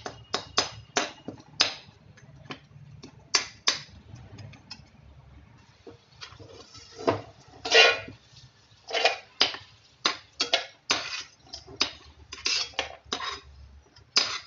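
Spatula scraping and clinking against a metal kadhai, stirring cashews, almonds, raisins and coconut slices as they roast lightly in a little oil. The strokes repeat irregularly, one or two a second, with a short pause about five seconds in.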